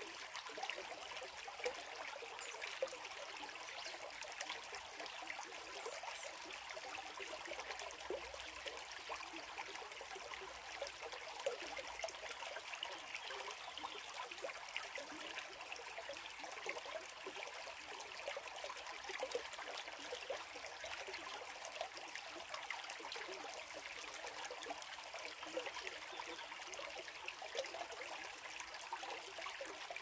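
Small shallow stream trickling over stones, a steady babble of water.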